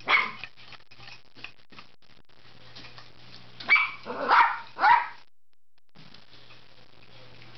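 Plastic shopping bag crinkling as a pet noses into it, then three short, loud animal calls in quick succession.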